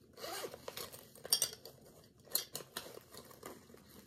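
Nail tools clicking and clinking against each other as a nail brush is pushed into a fabric nail bag, with the bag's fabric rustling. The sharpest cluster of clicks comes a little over a second in.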